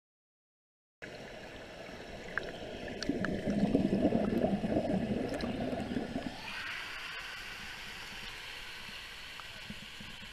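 Water bubbling and gurgling, loudest about three to five seconds in, then changing abruptly to a quieter steady hiss.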